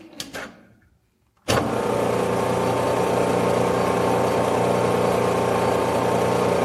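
A few light clicks, then a small metal lathe switches on about a second and a half in and runs steadily at low spindle speed, its motor and gear train giving a constant whine while a threading die is fed by hand up a steel stud.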